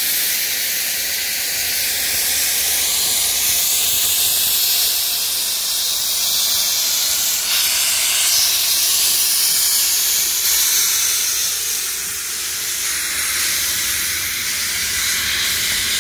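Steady steam hiss from the open cylinder drain cocks of steam locomotive R766, a Victorian Railways R class, as it moves slowly along the track.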